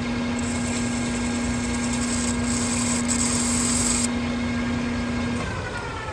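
Metal lathe turning a wheel hub, the carbide insert taking a finishing cut, with a steady hum from the machine and a high cutting hiss from about half a second to four seconds in. Near the end the lathe is switched off and the spindle winds down, its whine falling in pitch as it slows.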